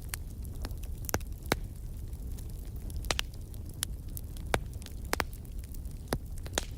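Wood fire crackling in a fireplace: irregular sharp pops and snaps over a steady low rumble of the flames, with a few louder pops scattered through.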